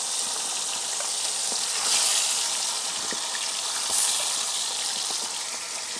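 Chopped ingredients frying in hot mustard oil in a pan over a firewood fire, with a steady sizzle that swells louder about two seconds in and again about four seconds in.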